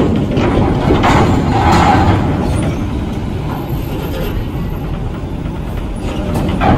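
Diesel engine of a Hino truck running as the truck drives slowly off a ferry's bow ramp, over a steady low rumble.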